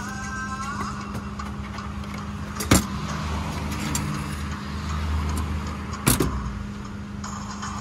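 Low, steady road-traffic rumble that swells in the middle as a vehicle passes, with two sharp knocks of kitchen utensils on the stall counter about three and a half seconds apart.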